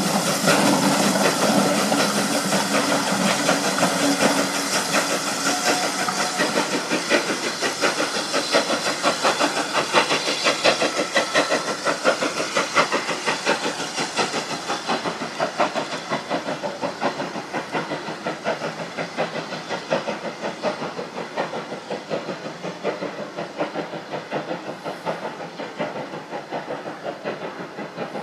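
Steam locomotive hauling a train of coaches away, its exhaust beats and steam hiss in a quick even rhythm, fading steadily as the train recedes.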